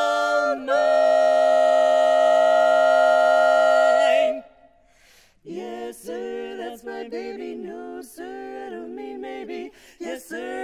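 Women's barbershop quartet singing a cappella in four-part close harmony. A loud chord is held for about three and a half seconds and cuts off just after four seconds in. After a second's pause, a softer passage of short, clipped chords follows.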